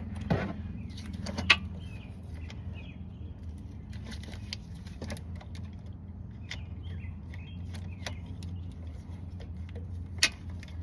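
Hand tools clicking and clinking against metal during work on the van's starter: scattered sharp knocks, the loudest about a second and a half in and another near the end, over a steady low hum.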